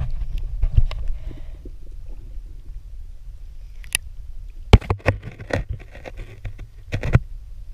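Muffled underwater sound heard through a GoPro's waterproof case in shallow sea water: a steady low rumble of moving water, broken by scattered sharp clicks and knocks, several of them between about four and seven seconds in.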